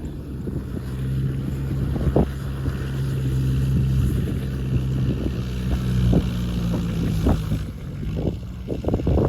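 A small engine running steadily, with scattered knocks and clatter, several in quick succession near the end.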